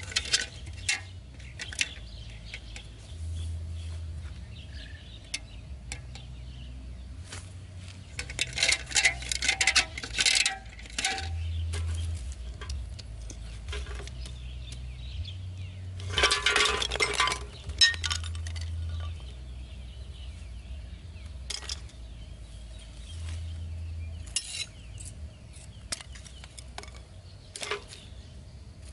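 Irregular light clinks, taps and scrapes from hands handling an aluminium drink can, bamboo stakes and small tools while building a trap, with two busier spells of handling, about a third of the way in and again a little past halfway.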